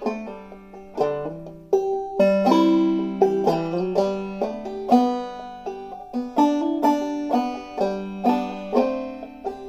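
Clawhammer banjo played slowly: single plucked notes of a melody ring and fade, with drop-thumb notes and a few sharp brushed strums filling between the phrases.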